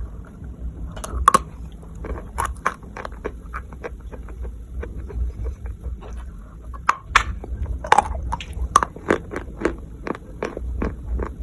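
Close-miked crunching of Maria chalk being bitten and chewed, with many sharp, irregular crunches several times a second.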